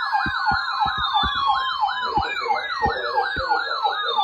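Electronic siren in a fast yelp, warbling up and down about four times a second. Slower falling tones sweep down over it, and irregular low thumps sound underneath.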